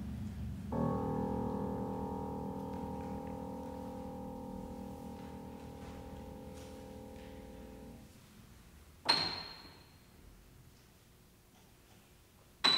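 Grand piano: a chord struck and held, fading slowly until the dampers cut it off about eight seconds in. Then two single, very high notes near the top of the keyboard, a few seconds apart, each ringing briefly.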